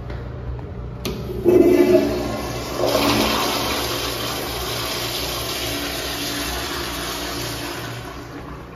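TOTO commercial toilet flushing through its flushometer valve. A click about a second in is followed by a sudden loud rush of water and a second surge a second later, then a steady rush that slowly tapers and drops off near the end.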